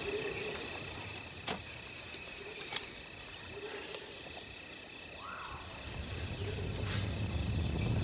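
Insects chirping in a steady, high, rapidly pulsing trill over faint outdoor ambience, with a few light clicks. A low rumble swells in near the end.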